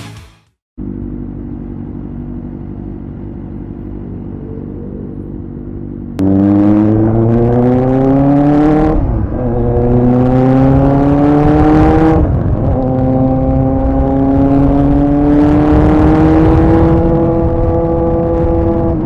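Kawasaki ZX-4RR's inline-four engine idling steadily, then about six seconds in pulling away hard, its pitch rising through the revs with two quick upshifts, climbing again and easing off near the end.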